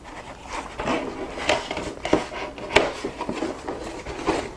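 Handling of a keyboard's packaging and its contents: irregular rubbing and scraping with light knocks, the sharpest a click a little under three seconds in.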